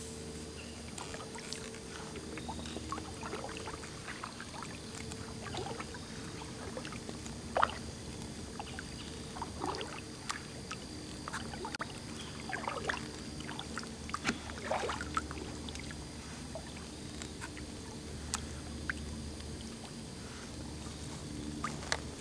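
A kayak drifting on calm water, with scattered small drips and splashes of water at the boat, most of them in the middle stretch, over a steady low hum.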